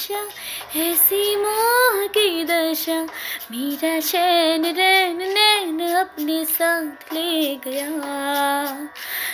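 A girl singing a Hindi film song solo, in phrases with sliding, wavering ornaments on the held notes and short breaks between them.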